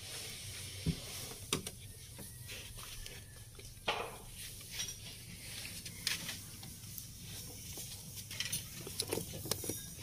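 Scattered plastic clicks and rattles from hands handling wiring-harness connectors under a truck dashboard, over a steady low hum.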